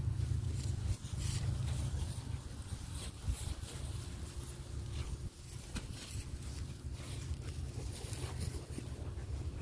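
Ewe lambs grazing right at the microphone, tearing and chewing grass in irregular crisp rips and clicks, over a steady low rumble of wind on the microphone.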